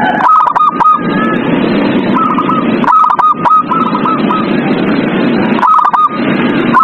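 Zebra dove (perkutut) cooing: short bursts of quick, hooked notes, repeated several times with pauses between them, over a steady background noise.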